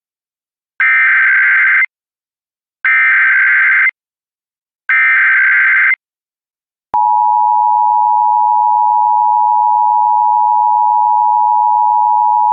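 Emergency Alert System broadcast: three one-second bursts of the digital SAME header data tones, a second of silence, then the steady two-tone EAS attention signal starting about seven seconds in. The header encodes a Child Abduction Emergency (AMBER Alert), and the attention tone signals that a spoken emergency message follows.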